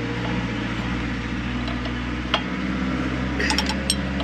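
Metal clinks of a socket and ratchet wrench against the steel injector fittings of a diesel engine: one clink about halfway through, then a quick run of clicks near the end. A steady low mechanical hum runs underneath.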